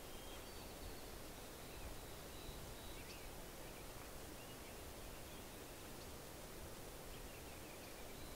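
Faint songbird chirps and short trills over a steady outdoor hiss, with a quick run of notes near the end.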